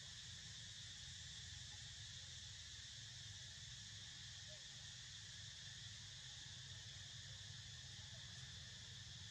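Faint, steady insect chorus, a continuous high hum with no breaks, over a low steady rumble.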